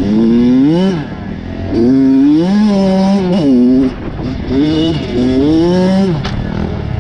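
Kawasaki KX100 two-stroke dirt bike engine revving under throttle. Its pitch climbs and drops back about four times as the throttle is opened and rolled off.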